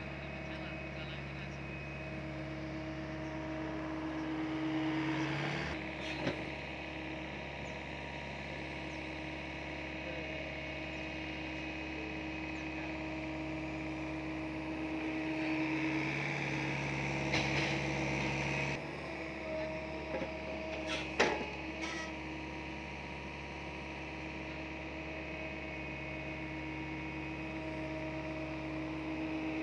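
SDLG mini excavator's engine running steadily as it digs, growing louder twice as the hydraulics take load. A few sharp knocks come about six seconds in and again around twenty-one seconds in, as the bucket works the soil.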